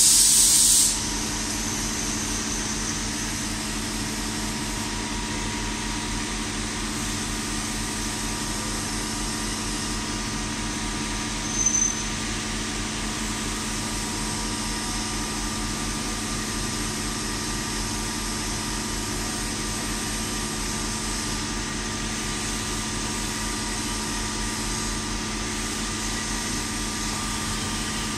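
CNC vertical machining center milling a keyway slot with a small end mill under flood coolant: a steady machine drone with held tones and a coolant hiss. A loud hiss ends about a second in, and a brief high squeak comes a little before halfway.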